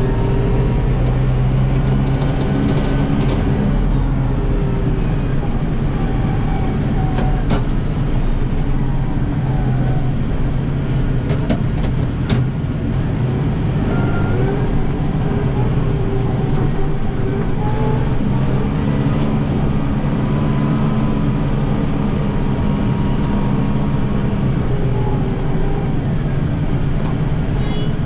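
Tractor diesel engine running steadily at working speed, powering a snowblower, with a few light clicks a quarter to halfway through.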